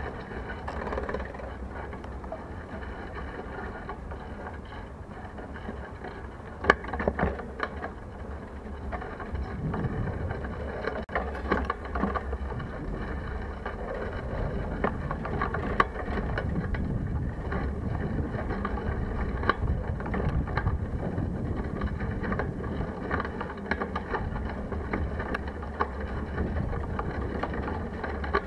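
Bicycle riding along a road, heard from a handlebar-mounted camera: steady rushing wind and rolling noise, with a few sharp knocks and rattles from bumps, the loudest about a third of the way in.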